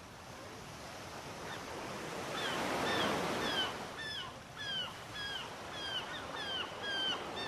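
Sea waves washing in, the surf swelling to a peak about three seconds in. From about halfway through, a bird calls over it again and again, short falling notes about two a second.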